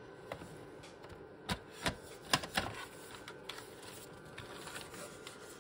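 A few light clicks and knocks of an opened BYTE home computer, a ZX Spectrum clone, being handled, its plastic case and board shifted about; the sharpest come about two seconds in.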